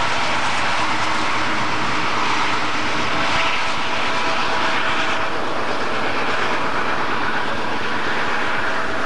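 Several Union Pacific diesel-electric locomotives working hard as they pull a freight train past, their engines running loud and steady with a continuous rumble and a faint steady whine.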